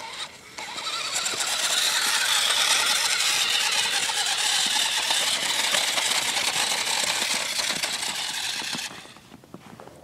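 Remote-control quad's motor and drivetrain whining as it drives through snow. The sound builds up in the first second, holds steady, and drops off about a second before the end.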